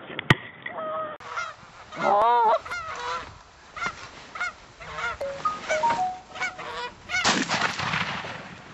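Canada goose honking and clucking: a run of short honks that rise and fall in pitch, loudest and fastest about two seconds in. A sharp crack comes just after the start, and a rush of noise rises near the end and fades.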